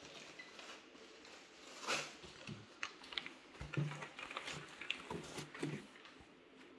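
Handling noise as the exhaust parts are unpacked: scattered rustles of packaging and light clicks and knocks, one louder rustle about two seconds in.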